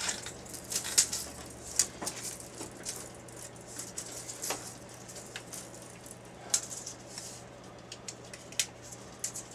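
Irregular clicks, ticks and rattles of a steel tape measure being pulled out and held along a PVC pipe, over a faint steady hum.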